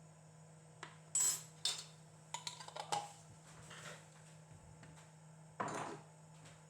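Kitchen dishes and utensils clinking and clattering: a quick run of light clinks and knocks in the first three seconds, then one short, louder swish near the end.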